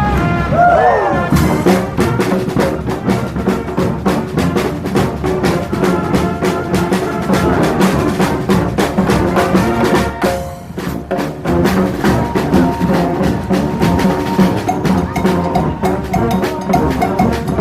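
Street marching band playing: horns over a busy drum beat with bass drum and snare. There are sliding horn notes at the start, and the band breaks off briefly about halfway before coming back in.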